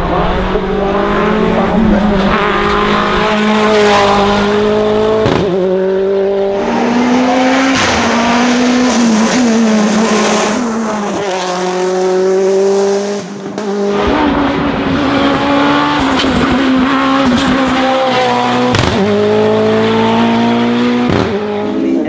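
Renault Clio hill-climb race car's engine at full throttle, climbing in pitch through each gear and dropping at quick upshifts, with sharp cracks at several of the shifts.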